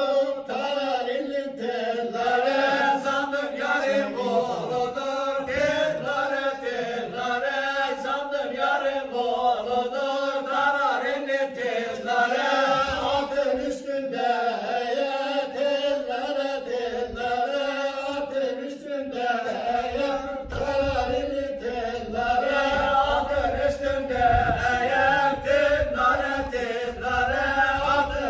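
A group of men singing a cappella in unison, a Bayburt ağız barı tune that carries the folk bar dance in place of instruments, with sharp knocks from the dancers' steps.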